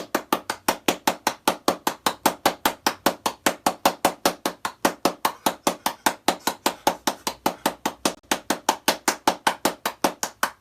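A rapid, even train of sharp clicks or taps, about seven or eight a second.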